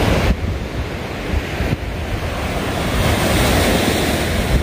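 Surf breaking steadily on a sandy beach, with wind rumbling on the microphone.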